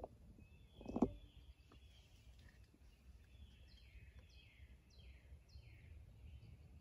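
A songbird singing a run of high whistled notes, each sliding downward, repeated about twice a second over faint woodland ambience. One short, louder low sound comes about a second in.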